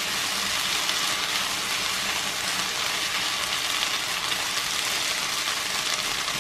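Sliced onions sizzling steadily in oil in a frying pan as they caramelize.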